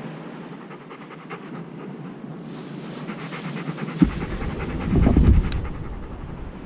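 Large long-haired dog panting rapidly and evenly right at the microphone, with a loud low rumble on the microphone about five seconds in.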